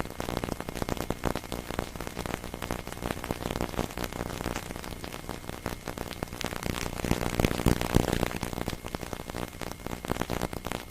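Steady crackling static noise, a dense run of clicks over a hiss, with a louder, lower swell about seven to eight seconds in.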